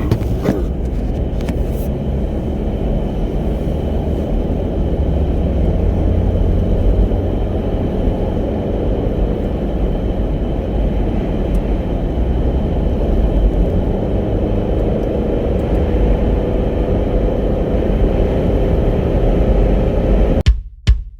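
Road noise inside a moving car: the engine and tyres give a steady low rumble. It cuts off suddenly near the end.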